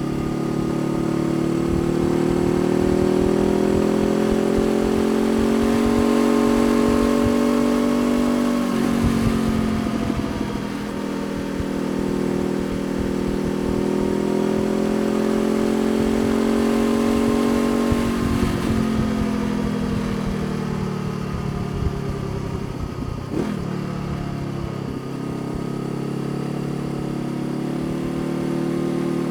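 Honda CBR500R's parallel-twin engine under way, its note climbing steadily as the bike accelerates, dropping about a third of the way in, climbing again, then falling away as the bike slows and settling into a steady note near the end.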